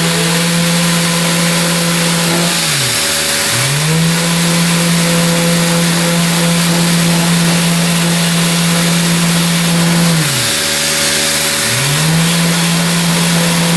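Grabo's battery vacuum pump running against an air cup, with a steady rushing hiss of drawn air. Its motor note winds down and spins back up twice. Air is being pulled past rough timber, drawing sawdust into the pump.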